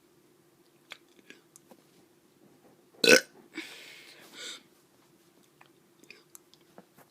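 A child's short burp about three seconds in, followed by a softer breathy sound. Faint small mouth clicks come before and after.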